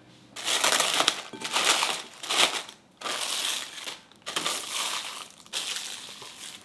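Thin plastic wrap crinkling and rustling as it is stretched and pressed down over a glass bowl, in several bursts with short pauses between.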